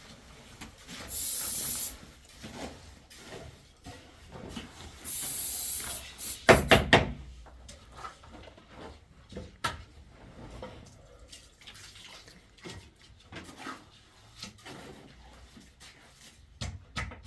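Water running in two short spells of about a second each, followed by a quick cluster of loud knocks about six and a half seconds in, with scattered small clatter between.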